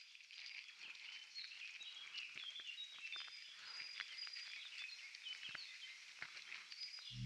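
Faint chirping of many small birds, short high notes overlapping, with scattered light clicks. Right at the end a loud deep drone comes in.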